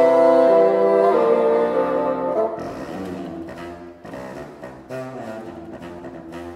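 Bassoon quintet of four bassoons and a contrabassoon playing a jazz arrangement: a loud held chord for about two and a half seconds, then quieter, shorter notes.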